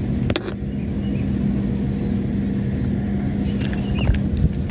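Steady low engine hum with a constant droning tone, and a couple of sharp clicks about a third of a second in.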